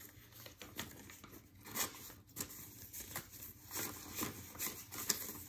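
Paper banknotes rustling and crinkling as bills are handled and slipped into a cash envelope, in soft irregular bursts.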